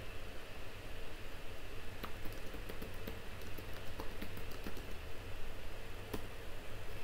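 Computer keyboard typing: a quick run of keystrokes from about two to five seconds in, and one more click near the end, over a steady background hiss and hum.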